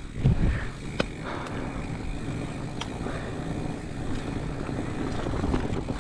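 Mountain bike rolling fast down a dirt trail: steady rumble of tyres on loose gravel and wind on the microphone, with a low thump just after the start and a few sharp rattling clicks from the bike about a second and about three seconds in.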